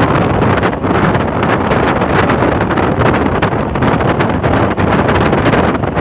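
Wind buffeting the microphone of a moving car, loud and fluttering over the steady rush of the car travelling at speed.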